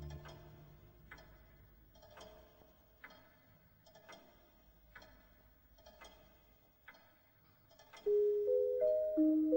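Pendulum clock ticking about once a second, each tick leaving a short ring. String music dies away at the start, and a bell-like mallet melody comes in about eight seconds in.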